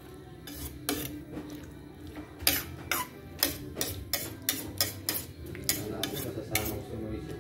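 A metal utensil clinking against a cooking pot, a few scattered clinks and then a quick string of them, about two a second, from about two and a half seconds in.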